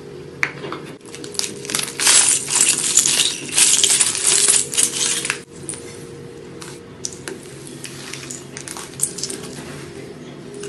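A handful of small plastic googly eyes poured onto glitter-covered slime, clattering and pattering like dropped coins for about four seconds, then scattered clicks and small sticky pops as fingers press and squish the slime.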